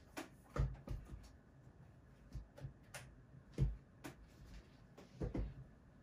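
Scattered light knocks and clicks as a Dyson Supersonic hair dryer is handled and set down on top of its red storage case. The loudest knocks come about half a second in and again past the middle, with a quick double knock near the end.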